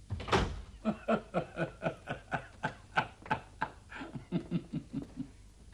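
A door shuts just after the start, then an older man laughs to himself in a long string of short chuckles, about four a second, that climb higher in pitch near the end.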